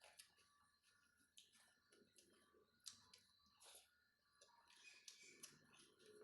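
Faint close-up eating sounds: wet mouth clicks and smacks of chewing chicken curry with rice, a dozen or so sharp clicks scattered irregularly.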